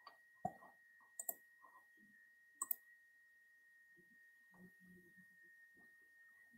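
Near silence: room tone with a faint steady high whine and a few faint clicks, one about half a second in, then a pair, then another pair near the middle.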